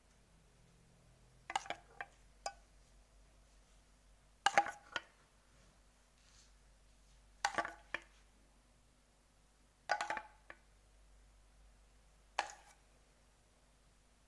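A spoon clinking against a saucepan and glass dessert cups, in five short bursts of two or three sharp clinks spaced a few seconds apart, as lemon sauce is spooned over one cup after another.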